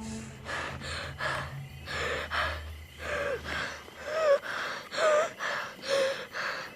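A person breathing hard in quick, ragged gasps, roughly two a second, some with a short voiced catch in the throat.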